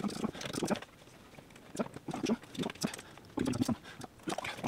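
Cables being plugged back into the rear of a desktop PC tower: a run of irregular light clicks, taps and rattles from connectors and cables being handled.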